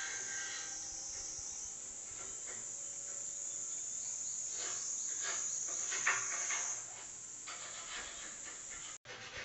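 Cicadas buzzing in a steady, high-pitched drone that fades about seven seconds in, with scattered short knocks and scrapes from work going on across the street.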